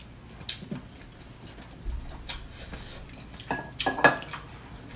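Chopsticks clicking against ceramic bowls and plates while people eat: a few scattered light clicks, then a quicker run of clinks about three and a half to four seconds in, the loudest of them near the end.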